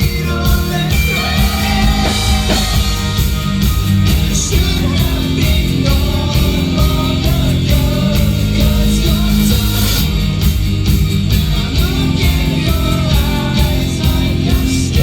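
Live rock band playing loudly: drums struck at a steady beat under guitars and bass, with a singer's voice carrying the melody.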